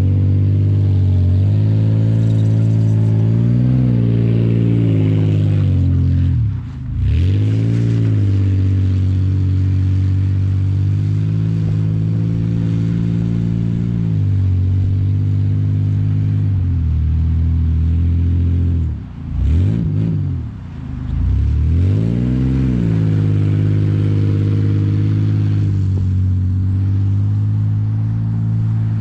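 Toyota Tacoma pickup's engine held at high revs as the truck drifts in the snow. The revs drop sharply and climb back about seven seconds in, and twice more around twenty seconds in.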